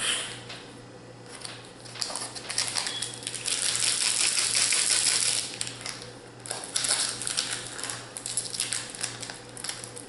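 Magic: The Gathering booster pack wrapper crinkling and crackling as it is handled and torn open by hand. It is loudest for a couple of seconds in the middle, with shorter bursts of crinkling after.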